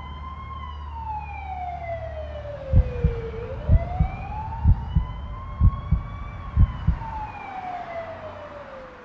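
A wailing siren slowly rising and falling, two full sweeps, over a low rumble. Deep thumps, about one a second, come in about a third of the way through and stop near the end.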